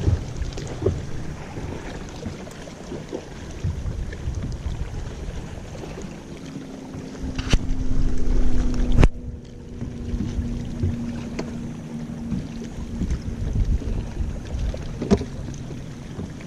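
Wind buffeting the microphone and water moving around a fishing boat, with scattered light knocks. A steady low hum comes in partway through and fades out a few seconds later, and there is a sharp click about halfway.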